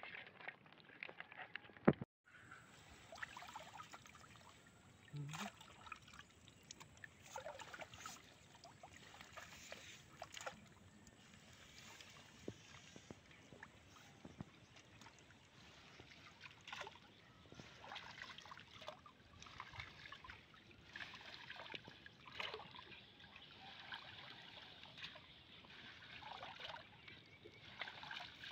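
Pond water sloshing, with small irregular splashes and trickles as a collapsible mesh box trap (a 'China net') is lifted and shaken through the water and weeds. A single sharp knock about two seconds in.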